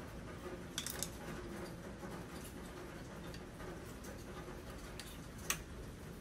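A few faint clicks and light taps from small plastic parts being handled, a cluster about a second in and a single sharper click near the end, over a low steady background hum.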